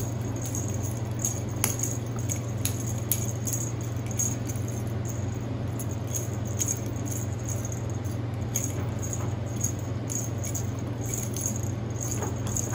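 Cat wand toy's small perforated plastic ball with a bell inside, rattling and jingling in irregular little shakes as the feather wand is jiggled, over a steady low hum.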